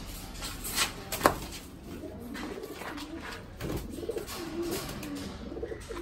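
Racing pigeons cooing, low wavering coos through the second half, with two sharp knocks about a second in.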